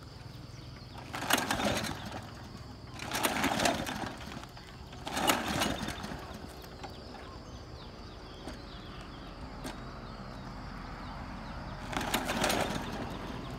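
Bison petrol lawnmower's recoil starter pulled four times, each pull a rasping burst of about a second as the engine cranks over without catching. A long gap separates the third and fourth pulls. The engine is hard-starting and needs extra cranking.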